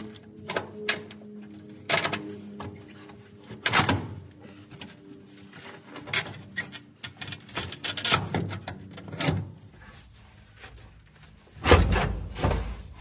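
A 1995 Ford F-150's steel transmission crossmember being wrestled into place against the frame: irregular metal clanks, knocks and scrapes, with a few heavier thumps near the end.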